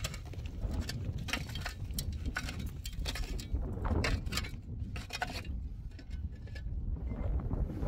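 Wind buffeting the microphone, with a run of light clicks and knocks throughout.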